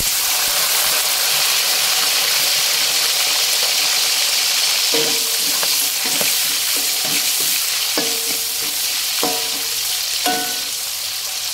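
Whole bird's-eye and red chillies frying in hot oil in a wok, a steady sizzling hiss. From about halfway a spatula turns them, knocking and scraping against the wok about once a second, each knock ringing briefly.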